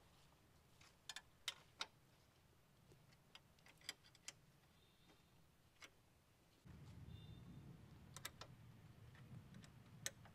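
Near silence broken by scattered, irregular small clicks and clinks as hands work on parts at the front of a car's engine bay. A faint low hum comes in about two thirds of the way through.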